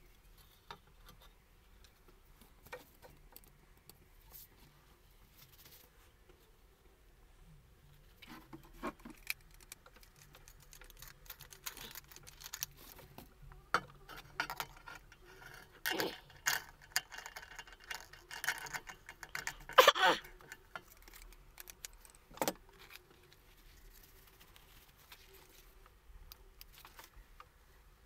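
Metal clinks, rattles and knocks as a rusty steel shovel head and an angle grinder with a wire cup brush are handled and set down on a wooden workbench. The grinder is not running. Only a few faint clicks come at first, then a busy stretch of clatter in the middle with a couple of louder knocks, before it goes quiet again.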